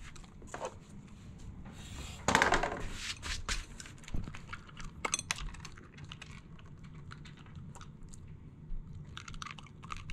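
A dog eating dry kibble from a bowl with a silicone slow-feeder insert: irregular crunching and small clicks of kibble against the bowl, picking up again near the end. A brief louder noise about two seconds in.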